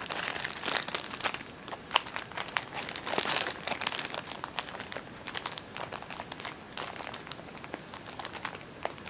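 Plastic packaging crinkling and crackling as it is handled, in irregular bursts that are dense at first and grow sparser through the second half.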